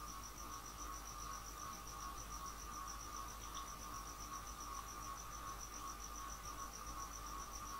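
Faint steady background: a high-pitched trill pulsing rapidly and evenly, several times a second, over a lower steady whine and a low hum.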